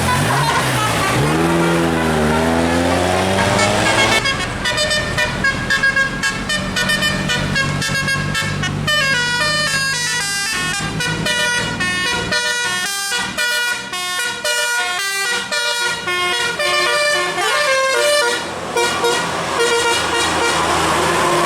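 Bus 'telolet' musical air horn: a pitch sweep gliding up and down for the first few seconds, then a fast tune of short, stepped notes. A steady low engine hum runs underneath for about the first half, then drops away.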